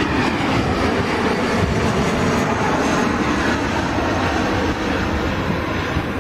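Bombardier CRJ regional jet passing low overhead on landing approach: its twin rear-mounted turbofan engines give a loud, steady rush of jet noise.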